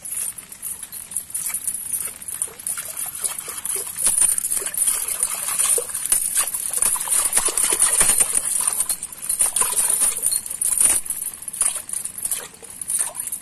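Muddy water splashing and sloshing in a small water-filled hole as a hand stirs and scoops in it, in irregular wet splashes that come thickest in the middle, over a steady high hiss.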